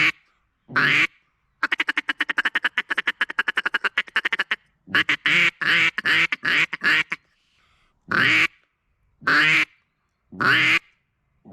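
Mallardo double-reed hen mallard duck call (cast resin barrel, poly insert) blown to imitate a hen mallard. A single quack, then a fast feed chuckle of about ten short notes a second for some three seconds, then a quick run of quacks, then single drawn-out quacks spaced about a second apart.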